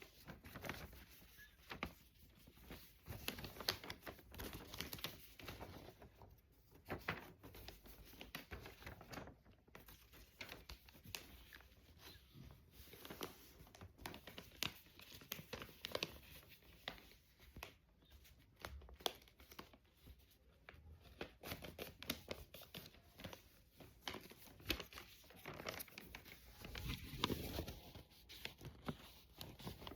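A sheet of paper being handled, folded and creased by hand into a paper airplane: faint, irregular crinkles, rustles and scrapes.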